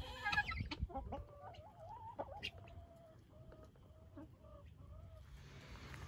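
Chickens clucking: a run of short, wavering calls that tail off about five seconds in.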